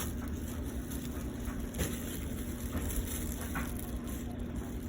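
A steady low hum with a constant drone, and a few soft clicks and rustles of handling.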